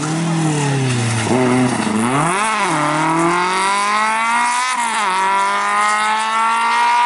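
Simca 1000 rally car's four-cylinder engine at full effort: revs fall as it slows, then it accelerates hard away, rising through the revs with a sharp drop at a gear change about five seconds in before climbing again.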